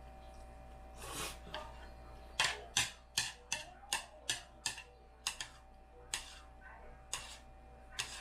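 Metal chopsticks clicking and scraping against a plate while picking up the last of the noodles: an irregular run of sharp clicks, about two a second, starting a couple of seconds in.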